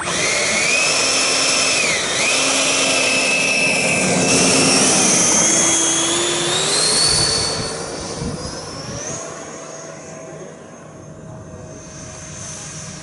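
Radio-controlled model F-16 jet's engine running with a loud whine, the pitch rising as it throttles up for the takeoff run. After about eight seconds it grows fainter as the model climbs away.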